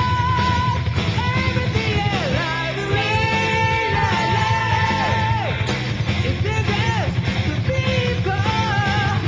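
1980s Japanese hard rock / heavy metal song by a full rock band: long held, bending melody lines and a singing voice over driving drums and bass.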